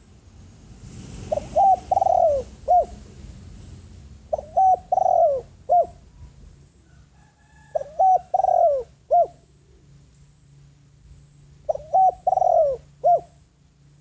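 Spotted dove cooing: four phrases about every three and a half to four seconds, each a quick run of short coos around a longer, louder middle note.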